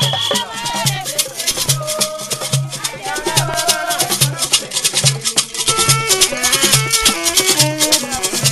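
Music with a steady beat, quick rattling percussion and a melody over it.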